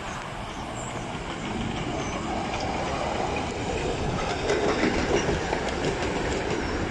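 Miniature 15-inch-gauge steam locomotive running past close by, its running noise growing louder as it nears, with light clicking of the wheels over rail joints.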